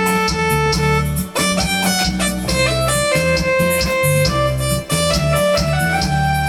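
Electronic keyboard playing an instrumental intro: a plucked, guitar-like melody over a steady bass line and rhythm accompaniment.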